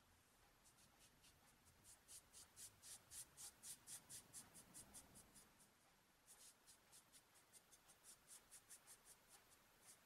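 Foam paint brush stroking black paint along the raw edge of an MDF piece: faint, quick scratchy strokes at about four a second, in two runs with a short pause about six seconds in.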